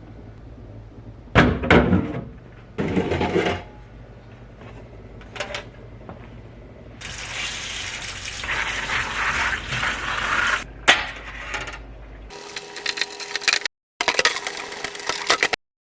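Household objects clattering and knocking twice, then several seconds of a hissing, scraping noise, over a steady low hum. The hum stops abruptly near the end.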